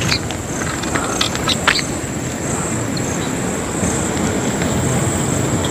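Steady outdoor background noise: an even rushing haze with a constant high-pitched whine above it and a few faint ticks.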